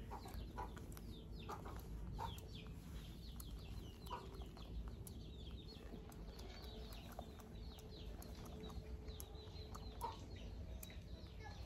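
A young macaque's fingers picking and rustling through a man's hair close to the microphone, with scattered soft clicks. Chickens clucking in the background.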